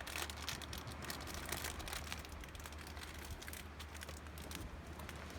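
Small wood-chip camping stove fire crackling with irregular sharp ticks and snaps, densest in the first couple of seconds, over a steady low rumble.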